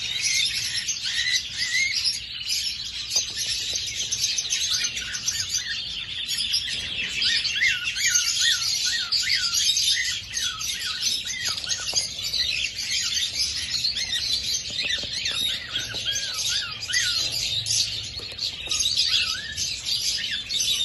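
A flock of young male cockatiels chirping and chattering continuously. Through the middle, a run of short, repeated rising-and-falling whistled notes stands out above the chatter.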